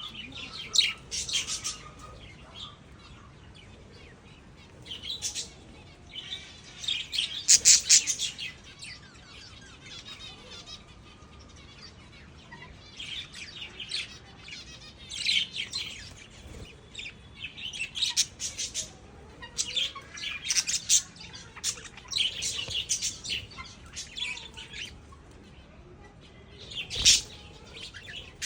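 Lovebirds chirping and chattering in clusters of quick, high-pitched calls, separated by short quieter gaps, the loudest flurry about eight seconds in.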